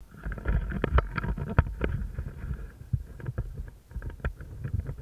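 Footsteps crunching through dry leaf litter and twigs, with irregular cracks and rustles over a low rumble of wind and handling on a body-worn camera's microphone.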